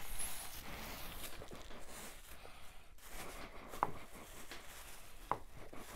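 Thin plastic bag crinkling and rustling as balls of fufu are handled and unwrapped, with two short sharp clicks about four and five seconds in.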